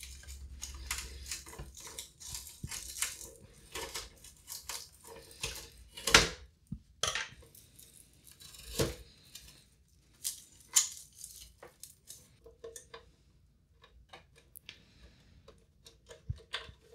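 Old, crinkly packing tape being cut with scissors and peeled off a sheet-metal drive bracket: irregular crackling and tearing with small snips and clicks. Two sharper clicks come about six and nine seconds in.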